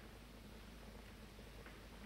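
Near silence: old film soundtrack hiss with a faint steady low hum.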